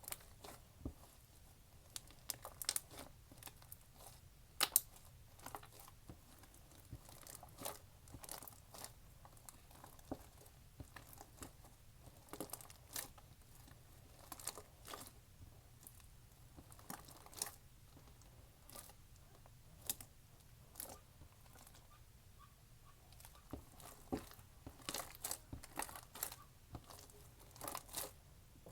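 Slime being squeezed and poked by hand: irregular crackling clicks and pops, coming in denser clusters toward the end, over a faint steady low hum.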